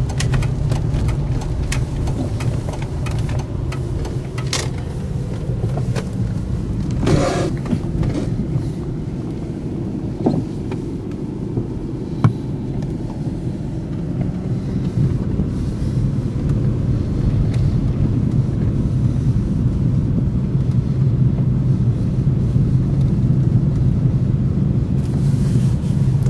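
Road and engine noise heard from inside a moving car: a steady low rumble, with a few brief clicks along the way.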